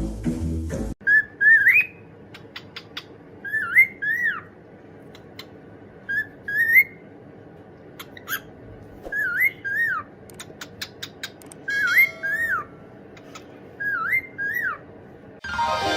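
A pet bird whistling a short phrase that swoops up and down in pitch, six times over, with sharp clicks in between.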